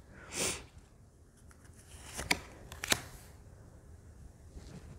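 Thin-cardstock tarot cards being slid one at a time across the deck in the hand: a short soft papery swish near the start, a few faint ticks, and two sharper card clicks a little over two and three seconds in. The whole is quiet.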